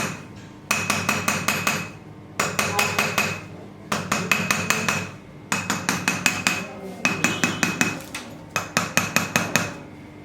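Chiropractic adjusting hammer tapping a metal chisel against the sternum and ribs. It goes in quick runs of about seven sharp, ringing taps, repeated six times with short pauses between.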